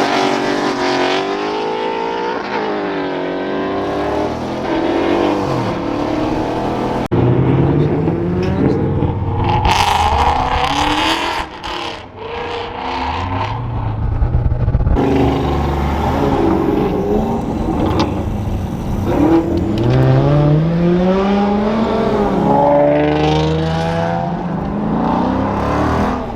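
Car engines revving and accelerating hard, their pitch climbing and dropping repeatedly, with abrupt changes about a third and halfway through where the sound cuts to another run.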